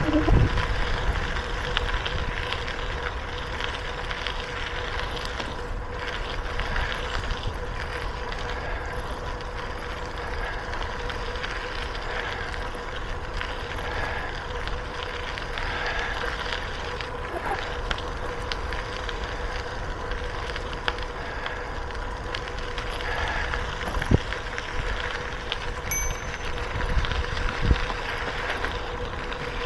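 A bicycle being ridden along a trail: steady tyre and riding noise with wind rumble on the microphone, under a faint steady hum. A couple of sharp knocks come in the last few seconds.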